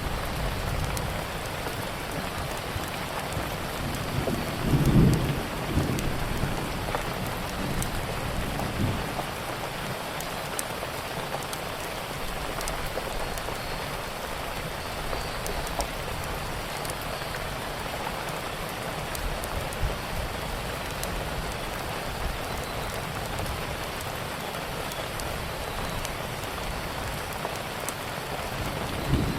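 Steady rain, with scattered sharp crackles and pops of a wood fire over it. A brief low rumble swells up about five seconds in.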